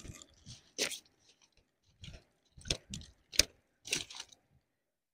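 Rustling and crunching handling noises with a few sharp clicks, loudest about three and a half seconds in, dying away near the end, as a landed carp is held and handled by hand.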